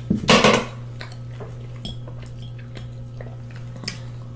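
Eating sounds close to the microphone: a short, loud noisy burst as food is picked from the plate with the fingers, then a few faint clicks. A steady low electrical hum runs underneath.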